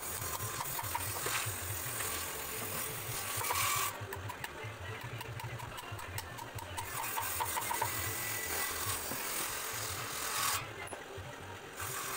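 Rough scraping and rubbing on wood at the teak window frame, in two long stretches: one for the first four seconds or so, the other from about halfway to near the end. A steady low beat of background music runs underneath.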